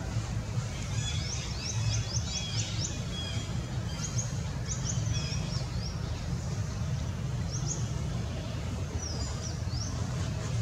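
Small birds calling in the trees: runs of quick, high chirps, a rapid series about a second in, more around four to five seconds and again near the end, over a steady low rumble.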